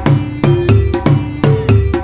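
Background music with a steady beat and strong bass hits.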